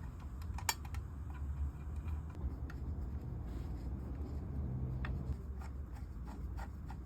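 Scattered light clicks and taps of small parts or tools being handled, over a steady low hum.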